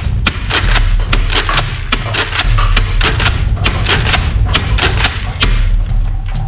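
Plastic toy blaster firing shot after shot, sharp cracks at about three a second, as it knocks down paper cups. Background music plays underneath.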